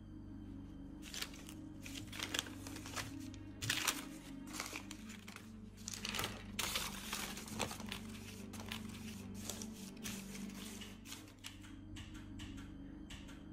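Sheets of loose notebook paper rustled and crumpled by hand, crackling on and off, over steady low droning music.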